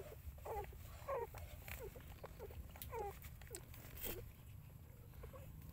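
Nursing puppies whimpering in short, high squeaks, many falling in pitch, two or three a second, thinning out about four seconds in, over a low steady rumble.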